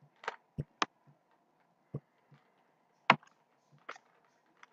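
About half a dozen sharp, irregularly spaced clicks from a computer mouse as a window is dragged and resized, with near silence between them.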